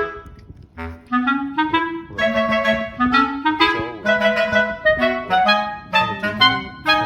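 Background music: a bouncy clarinet-like melody of short staccato notes over a plucked bass line.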